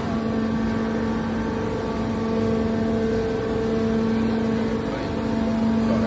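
Dalongkai Y81K-630 hydraulic metal baler running on its test, its electric motors and hydraulic pumps giving a steady hum with a constant pitched tone.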